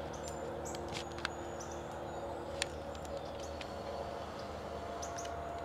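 Outdoor morning ambience: small birds chirping now and then in short high notes over a steady low hum, with two sharp clicks about one and two and a half seconds in.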